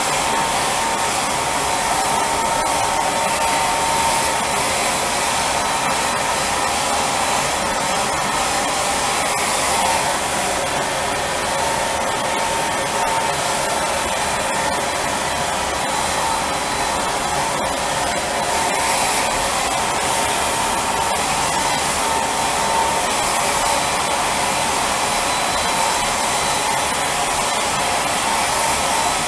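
Spray tan machine running continuously: the steady blower of the unit with the hiss of air through the hose-fed spray gun, and a thin steady whine over it.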